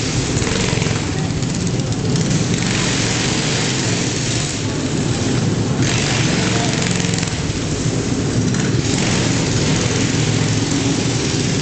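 Small engines of motorized racing bar stools running and revving as they lap a shop floor. The engine noise is loud and rises and falls every few seconds as the stools come and go.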